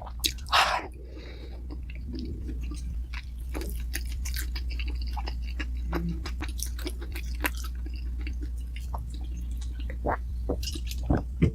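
Close-miked chewing of dumplings: a run of irregular wet smacks and soft clicks of the mouth working the food, with one louder burst about half a second in.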